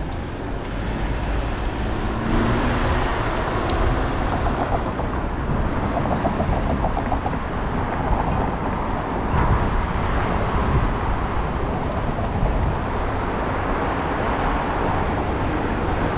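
Street traffic noise heard from a moving bicycle: passing cars and a steady low wind rumble on the microphone.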